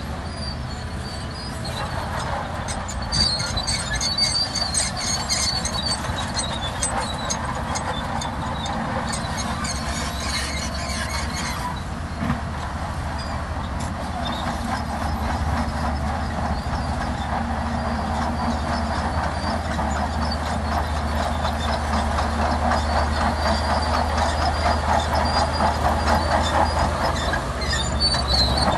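Crawler bulldozer's diesel engine running under load while its steel tracks clank steadily and squeal at times. The track noise grows louder toward the end.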